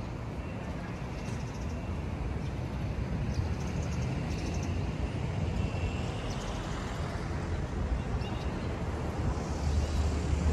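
Steady outdoor city noise: a low rumble of road traffic, swelling slowly louder toward the end.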